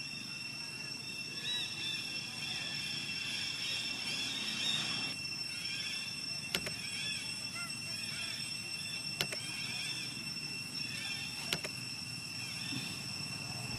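Many short, high-pitched animal chirps and squeaks, rising and falling, over a steady high-pitched drone, with three sharp clicks in the second half.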